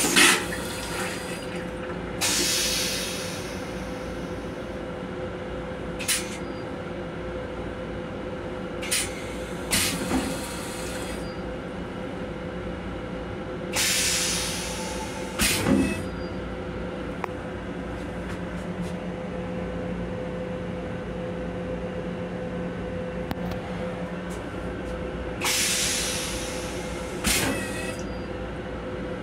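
Flush cycle of an M7 commuter railcar toilet: a sharp loud burst as it begins, then a string of short hissing bursts of air and rinse water spread through the cycle. Under it is the steady hum of the moving train.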